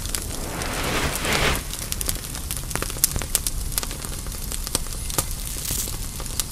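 Fire sound effect: a steady crackling hiss with many sharp pops, swelling briefly about a second and a half in as the flames take hold.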